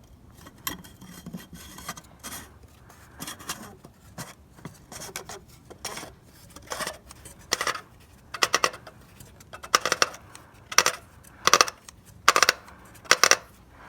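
Sharp metallic clicks and scrapes from hand work on the oil filter housing as it is being refitted and tightened. The clicks come about once a second and grow louder in the second half.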